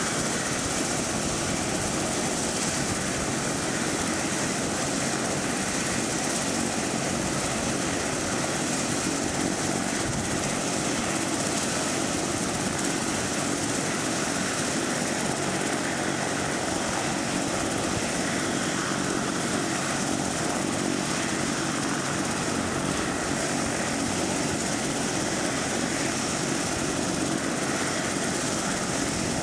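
Turbine rescue helicopter running on the ground with its main rotor turning: a steady turbine whine over the rotor's rumble, holding level without rising or falling.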